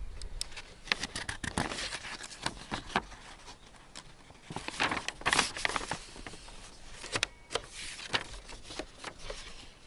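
Paper pages of a service book being turned and shuffled on a book stand right beside the microphone: an irregular run of rustles, crinkles and small taps, loudest about five seconds in.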